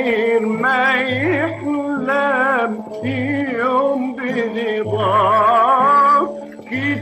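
Egyptian dor song: a wordless, melismatic vocal line with heavy vibrato, sung in phrases over a plucked-string accompaniment, with a low note recurring about every two seconds.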